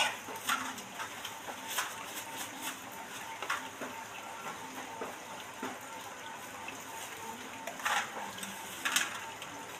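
Steel plates and bowls clinking and knocking on wet concrete, with some water splashing, as fish pieces are washed by hand; scattered clatters, the two loudest near the end.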